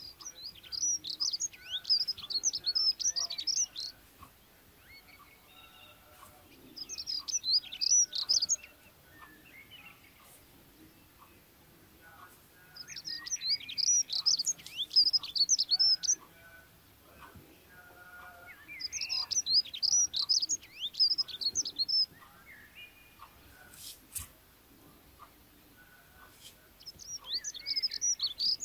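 A small songbird singing in bouts of rapid, high chirps. There are five bouts a few seconds apart, with quieter pauses between them.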